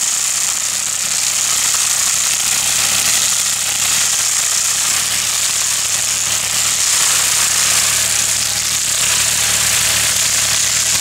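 Tractor engine running under load while a Calderoni side-mounted rotary inter-row weeder spins its rotor through grass and soil around orchard trees, a steady rough mechanical rattle.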